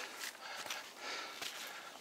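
Footsteps and hard breathing of a hiker climbing a steep mountain trail, as a run of short, evenly repeated scuffs and breaths.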